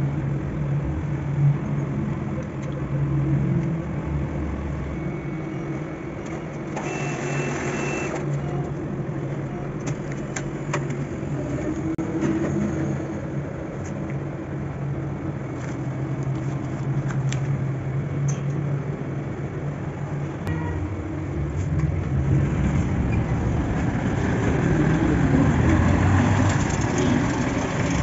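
Steady low hum with a background of traffic-like noise, and a short whirring burst with a thin high tone about seven seconds in, typical of an ATM's cash dispenser pushing out notes; a few sharp clicks follow. The background noise grows louder near the end.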